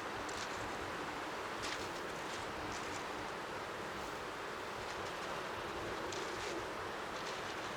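Strong wind rushing over the microphone, an even steady hiss with the sea's waves lapping faintly underneath. A few brief, light ticks stand out now and then.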